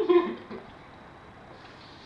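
A deaf boxer dog gives a short pitched vocal sound in the first half second.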